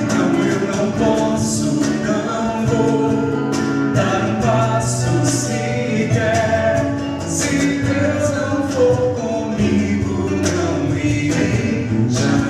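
Christian worship song: singing voices over instrumental accompaniment.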